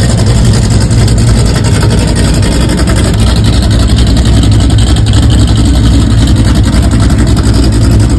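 Chevrolet Chevelle SS's V8 engine idling, loud and steady, with a deep, rapid, even pulse.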